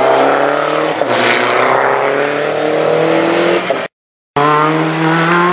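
Race car engine accelerating hard, its pitch climbing with a quick gear change about a second in. The sound cuts out for half a second near the end, then a race engine is heard climbing in pitch again.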